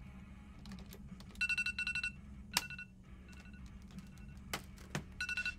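Electronic timer beeping: a quick run of short, high two-tone beeps about a second and a half in, a few single beeps after, and another run near the end, over faint background music.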